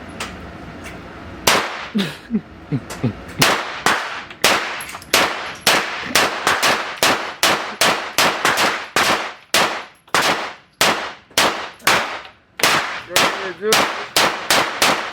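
Repeated gunshots, sharp and loud, each followed by a short echo. The first loud shot comes about a second and a half in, and from about four seconds in the shots keep coming at roughly two a second.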